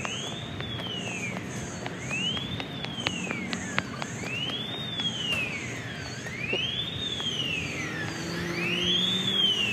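A siren wailing, its pitch rising quickly and falling back more slowly about every two seconds. Fainter high-pitched beeps sound in groups of three.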